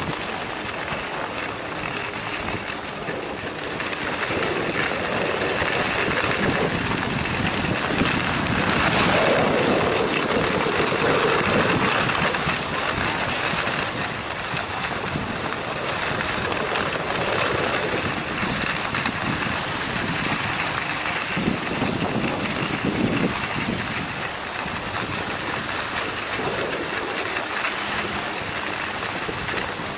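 Wind rushing over a handheld camcorder's microphone while skiing downhill, mixed with skis scraping over groomed snow. A steady, loud rush that swells a few seconds in and eases somewhat past the middle.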